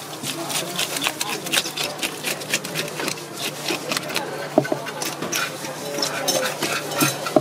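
A handheld fish scaler scrapes rapidly along a whole fish in quick, repeated strokes, rasping off large scales.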